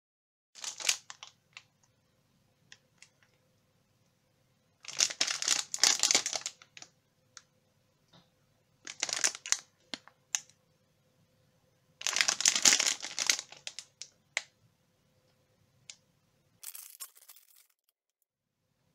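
Plastic snack wrapper crinkling in several bursts as it is handled and torn open, with small clicks and rustles between them.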